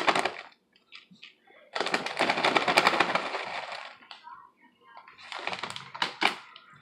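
Plastic bag of shredded cheese crinkling as it is shaken out over a plastic bowl, with the shreds pattering into the bowl. The rustling comes in a long spell of about two seconds, then shorter bursts later on.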